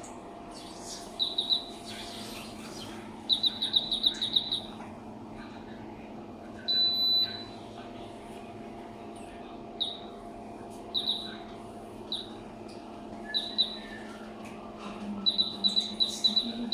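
A small bird chirping in short trills of rapid high notes, with single chirps between them and one longer held note about seven seconds in. A steady low electrical hum runs underneath.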